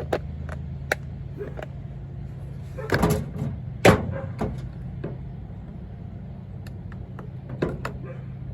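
Clicks and clatter of a drill bit set being handled and searched through, with two louder knocks about three and four seconds in, over a steady low hum.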